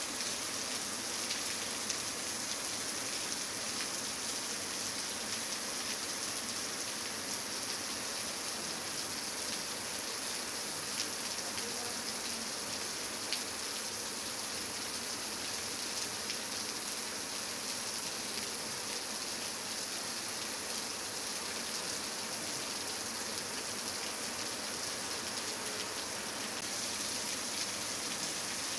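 Steady heavy rain falling on a wet paved courtyard: an even hiss with many small drop ticks.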